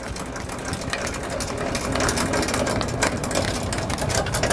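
Hand-cranked trailer tongue jack being wound down, its gearing giving a rapid, even run of mechanical clicking as the coupler lowers onto the hitch ball.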